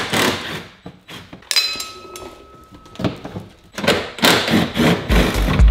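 Irregular clunks and scraping from parts and tools being handled, with a brief high squeak in the middle. Background music with a heavy beat starts near the end.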